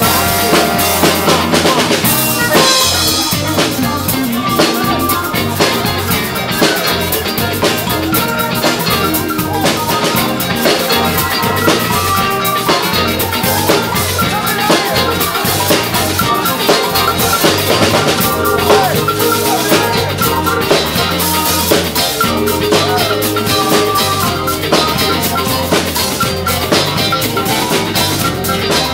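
Live band playing at full volume, a drum kit keeping a steady beat under electric guitar.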